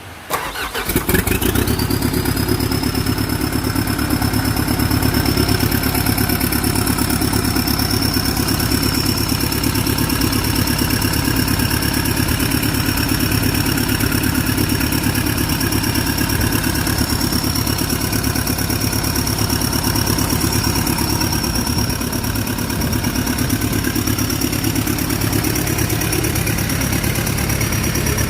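A Kobelco SK200-8 excavator's Hino J05E four-cylinder turbo diesel starting about half a second in, on its test run after a top overhaul, then idling steadily. A high whine rises as the engine catches and then holds one steady pitch.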